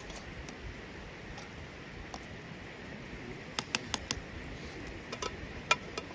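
Cooking over an open wood fire: a steady hiss with a few sharp crackling pops, a cluster of them about halfway through and more near the end.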